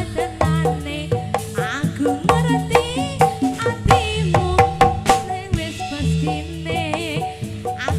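Javanese gamelan-style music accompanying a jathilan dance, playing an instrumental passage: hand drums struck in a busy rhythm over repeating low notes, with a wavering melody above.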